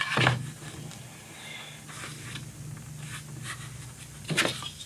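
A marker scratching around the edge of a round hatch-lid template on cardboard, with light handling knocks as the lid is held in place, over a steady low hum.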